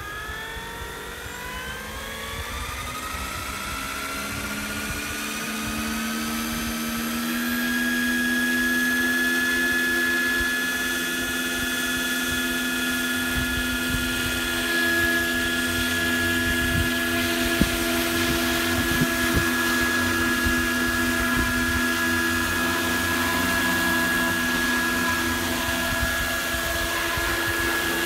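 Roban EC-225 Super Puma 700-size electric model helicopter spooling up. The whine of its motor and rotors rises in pitch for about eight seconds, then holds steady at flight speed as the helicopter lifts off near the end.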